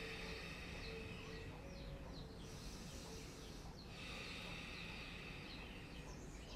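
Faint birdsong: small birds giving short, high chirps that slide downward, repeated every second or so over a steady low background noise.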